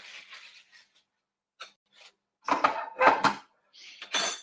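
Metal espresso-machine group head parts clinking and scraping as they are handled, with a few knocks and brief metallic ringing. The sharpest clink comes near the end.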